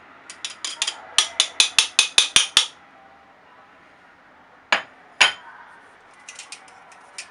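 Metal sieve knocking against a stainless steel mixing bowl as it is shaken to sift cake flour through. There is a quick run of about eight sharp metallic taps, then two more, then a few lighter taps near the end.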